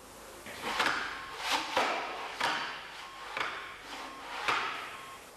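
Thin sheet metal sliding under the clamp bar of a sheet-metal folder, scraping over the machine, with about half a dozen light knocks as it is pushed against the stops.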